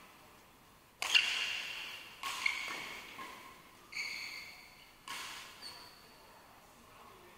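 Badminton rackets striking a shuttlecock in a doubles rally: about six sharp pings roughly a second apart, each fading out in the echo of the sports hall.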